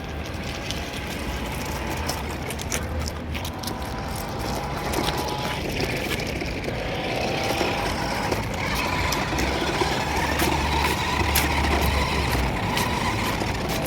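Remote-control toy Hummer police car running: a small electric motor whines faintly in gliding tones over rumbling, rattling and clicking, growing slowly louder.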